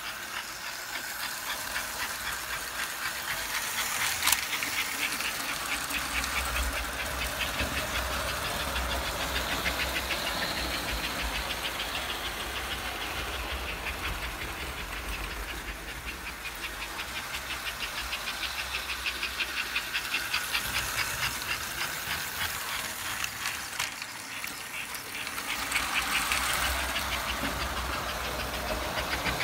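American Flyer 293 S-gauge steam locomotive running on three-rail track pulling a train, its motor and wheels making a rapid, even ticking, with a low hum under it. It gets louder and softer as it comes near and goes away around the layout. There is one sharp click about four seconds in.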